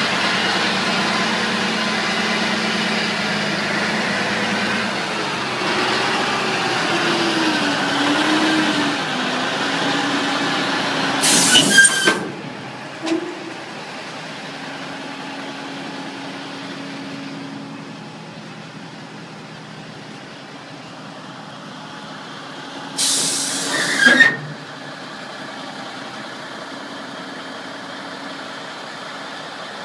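Caterpillar 3406B inline-six diesel of a 1991 Volvo Autocar dump truck running, its note rising and falling in the first half. There are two loud hisses of released air, about eleven and twenty-three seconds in, and the engine sounds quieter after the first.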